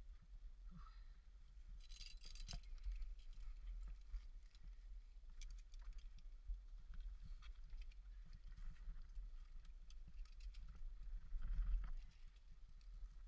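Faint scattered clicks, scrapes and clinks of gear and movement over a steady low rumble, with a denser cluster of clinks about two seconds in and a louder stretch near the end.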